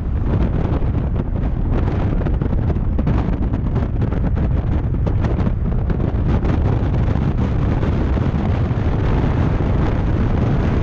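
Strong wind buffeting the microphone: a loud, steady low rush with constant fluttering.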